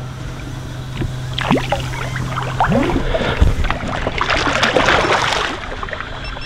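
Hooked shark thrashing and splashing at the surface beside the boat, loudest in the middle, over the steady hum of an idling outboard motor, with a few short rising squeaks.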